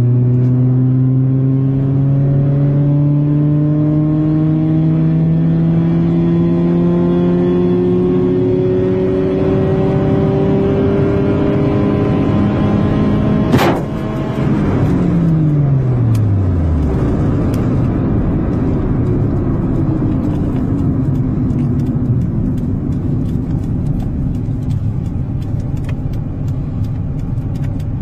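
Car engine at full throttle heard from inside the cabin, its pitch rising steadily, then about halfway through a single loud crash as the car hits the trees and the windscreen shatters. The engine note falls away over the next few seconds, leaving rough rumbling noise with scattered cracks.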